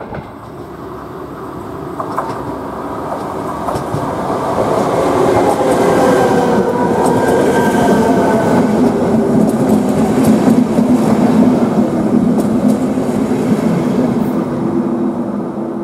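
ČD class 471 CityElefant double-deck electric unit running into the station along the platform, getting louder as it draws close. Its traction motors whine in several tones that fall slowly as it slows, over the noise of the wheels on the rails.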